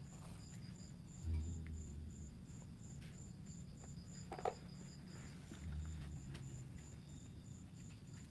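Crickets chirping steadily, about three chirps a second, over a low hum. There is a soft low thump a little over a second in and a short sharp sound about four and a half seconds in.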